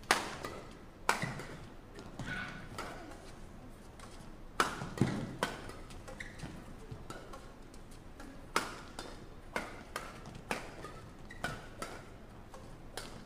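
Badminton rackets striking the shuttlecock in a doubles rally: a dozen or so sharp hits at uneven intervals, roughly a second apart.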